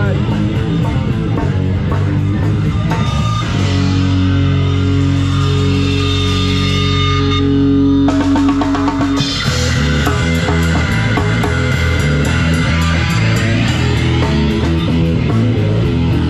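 Live rock band playing: electric guitar over a drum kit. A few seconds in, the cymbals and beat drop out while held notes ring for a few seconds, then the full band comes back in with a steady beat.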